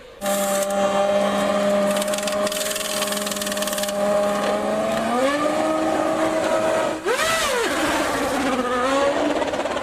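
1996 Formula One race car engine running at high revs. It cuts in abruptly, holds a steady note, climbs in pitch about halfway through, then swoops quickly up and back down around a gear change.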